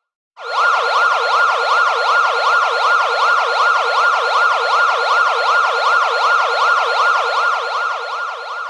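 Electronic siren sound effect in a fast yelp, its pitch sweeping up and down about three times a second. It cuts in abruptly about half a second in, after a brief gap.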